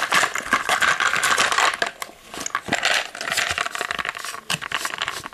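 Plastic toy packaging being handled and opened, crinkling, with many quick sharp clicks of small hard plastic Mighty Beanz toys knocking against each other and the pack.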